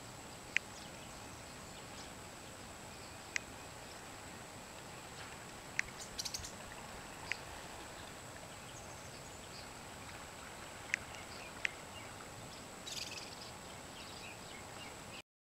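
Lakeside outdoor ambience: a steady hiss with a thin high steady tone, and short sharp bird chirps every few seconds, with a brief flurry of calls about six seconds in and another near the end. It all cuts off suddenly just before the end.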